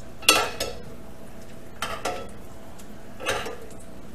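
A large metal serving spoon scrapes and knocks against a cast iron skillet and a mixing bowl while biscuit dough is scooped and basted with grease, in a few short clatters, the loudest just after the start. Underneath is a faint steady sizzle of dough starting to fry in the hot grease.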